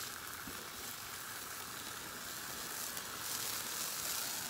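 Food sizzling steadily on a hot flat-top griddle: fried rice, chicken and vegetables frying.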